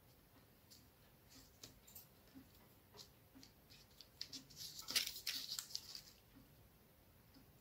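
Faint rustling and light ticks of paper being handled, glued and pressed flat, with a short burst of louder paper rustling about five seconds in.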